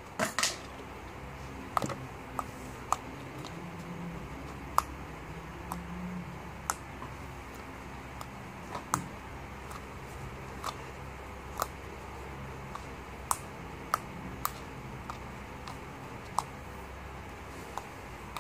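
Fingers poking and pressing white slime in a clear plastic bowl, giving short sharp clicks and pops at irregular intervals, roughly one a second.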